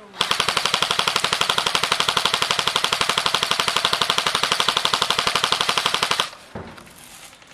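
Airsoft gun firing one long full-auto burst of rapid, evenly spaced shots for about six seconds, then stopping abruptly.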